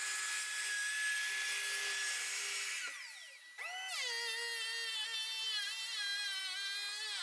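A track saw runs through a door along its guide rail, then winds down about three seconds in. Half a second later a cordless power planer starts with a rising whine and runs on, its pitch wavering as it shaves the door's edge down to height.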